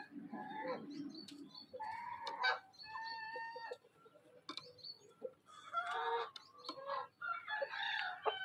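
Birds calling, a run of short, varied calls repeating every second or so, with a low rustle near the start.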